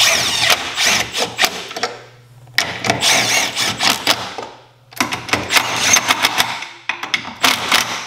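Milwaukee M12 Fuel cordless impact wrench hammering in four bursts of about two seconds each, running down and snugging the bolts of a mounting plate on a jet pump housing.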